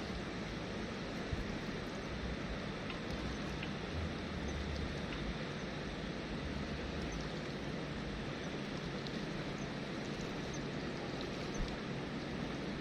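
Steady rushing of flowing river water, with low gusty rumble of wind on the microphone and a few faint ticks.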